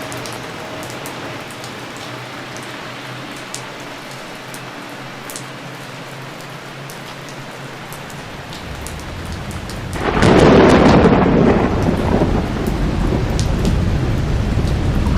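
Steady rain with scattered drops. A low thunder rumble builds about eight seconds in, breaks into a loud clap about two seconds later, and rolls on to the end.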